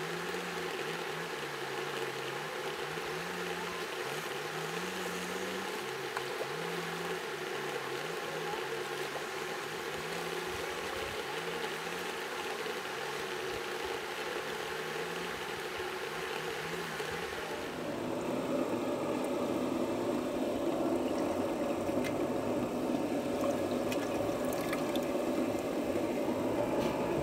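Shallow stream water running and sloshing around people wading in it. The water sound turns louder and fuller about eighteen seconds in.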